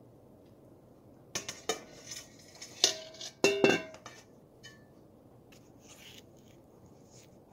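Stainless steel kitchenware clinking and clanking while custard is strained through a mesh sieve over a metal pot: a cluster of sharp metallic knocks with short ringing, between about one and four seconds in, then a few faint ticks.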